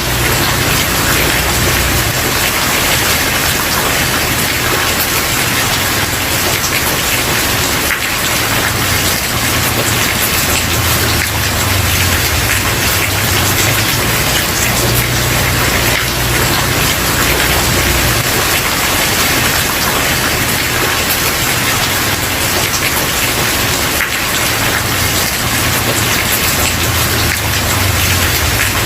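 Steady rain falling on a wooden porch, a dense even patter of drops, with a low rumble underneath that swells and fades every few seconds.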